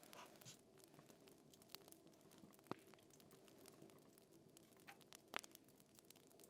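Faint crackling of a fire: scattered small irregular clicks over a low steady rumble, with two sharper pops, one near the middle and one near the end.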